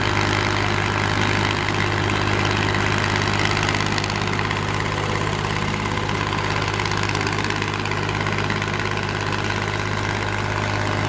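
Komatsu PC210 excavator's diesel engine running steadily with a constant low hum.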